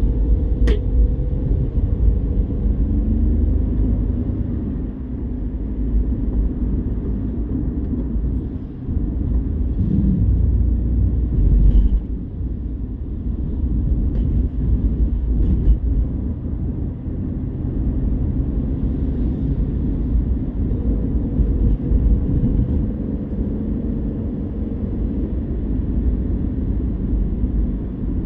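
Car engine and tyre noise heard from inside the cabin while driving: a steady low rumble with a faint engine hum. A single sharp click comes about a second in.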